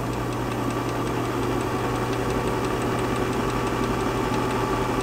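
Sears Kenmore electric sewing machine running steadily at speed: an even motor hum with a faint, quick, regular ticking. It runs smoothly, already oiled.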